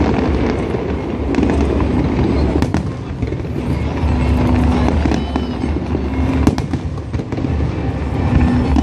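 A dense fireworks barrage: a continuous low rumble of booms with many sharp cracks on top.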